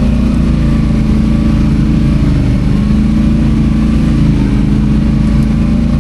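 ATV engine running steadily under way, its pitch rising and falling slightly with the throttle.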